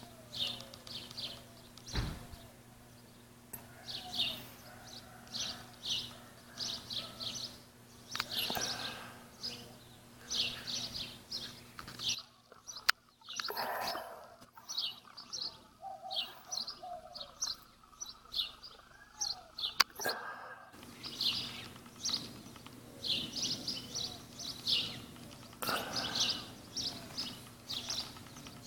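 Small songbirds chirping: quick series of short high notes, repeated every second or two, over a faint steady low hum, with a few sharp clicks, one about two seconds in and the loudest about twenty seconds in.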